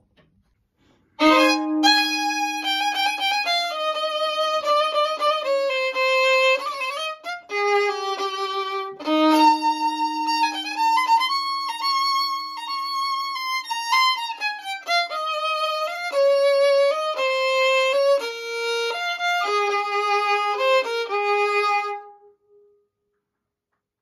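A violin bowed in a slow melody, opening on a long held low note, with another long held note about nine seconds in and some notes sliding in pitch; the playing stops about two seconds before the end.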